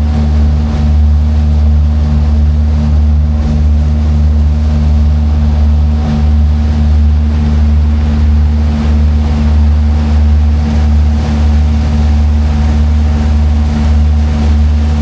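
Tour boat's engine running steadily at cruising speed: a loud, even low drone with a steady hum, over a hiss of water and wind.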